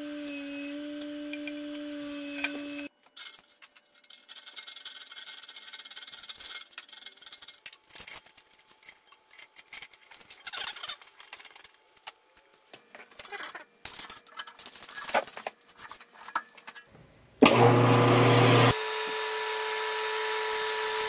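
Metal parts clinking and scraping as a rusty brake drum is clamped onto a Jet 1336PBD engine lathe with a threaded rod and nuts. A steady hum stops about three seconds in. About 17 seconds in, the lathe starts with a loud surge, then runs with a steady hum as the drum spins.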